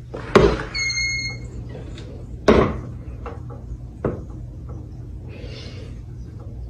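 A door being handled, with three sharp wooden knocks about two seconds apart. Just after the first knock there is a short, steady, high squeak.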